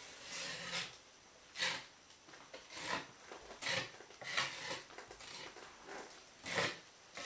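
Metal putty knife scraping and smoothing joint compound over a drywall patch in about seven short strokes with pauses between, spreading a second coat and feathering its edges.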